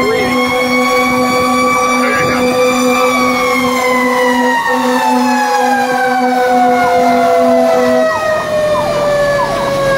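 Fire engine's mechanical siren, heard from inside the cab, holding its pitch and then slowly winding down. Under it a low horn tone sounds in short repeated blasts, about two a second, stopping near the end.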